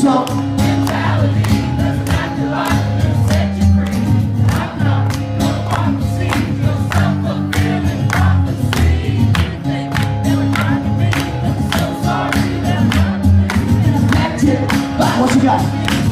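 Live acoustic rock song: strummed acoustic guitar keeping a steady beat under held low notes, with a lead singer and the audience singing along.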